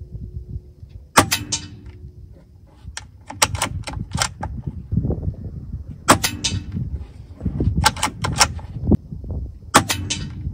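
Gamo Arrow PCP air rifle firing: three sharp shot cracks about four seconds apart, with quicker clicks between the shots.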